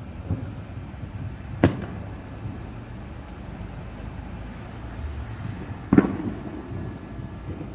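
Distant firework booms: a sharp bang about a second and a half in and a louder one about six seconds in that rumbles briefly after, over steady low background noise.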